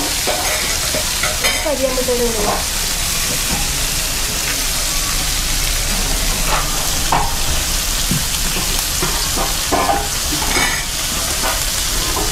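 Food frying in a pan, a steady sizzle with stirring and a few short clinks.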